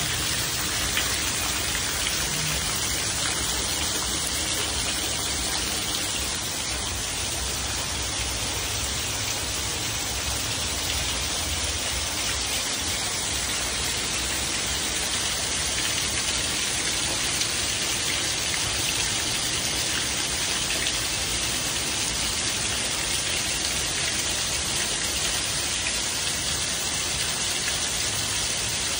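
Heavy rain falling steadily, a dense unbroken hiss of drops, with water pouring off a roof edge and splashing down.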